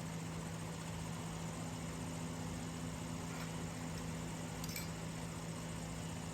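Air compressor running with a steady low hum. A faint light click about two-thirds of the way through.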